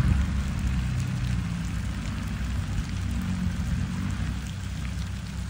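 Land Rover Discovery Td5's five-cylinder turbodiesel engine running steadily at low revs as the vehicle drives off through mud, with an even hiss over it. It fades a little near the end as it moves away.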